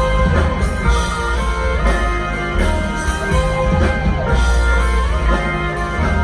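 Live progressive rock band playing an instrumental passage between vocal lines, with electric guitar over bass and drums.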